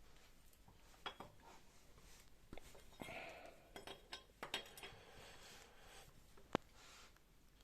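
Faint, scattered clicks and clinks of small metal parts being handled and set down, about half a dozen separate taps with quiet in between.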